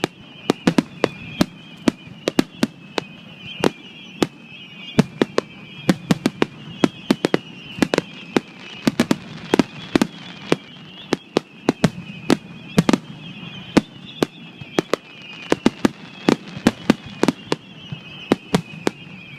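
Fireworks bursting in a rapid, irregular barrage of sharp bangs, often several a second, over a steady high-pitched drone.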